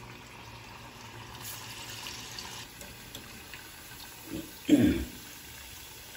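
Masala vadas deep-frying in hot oil in a kadai: a steady sizzle, a little brighter for about a second near the start. A single loud thump comes a little over four seconds in, as the fried vadas are lifted out on a wire skimmer.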